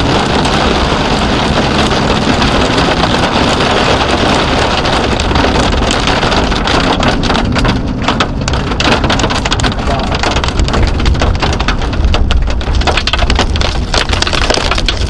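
Heavy thunderstorm rain and strong wind beating on a car as it drives, heard from a dash cam inside. A loud, steady rush that turns choppy and gusty from about halfway through.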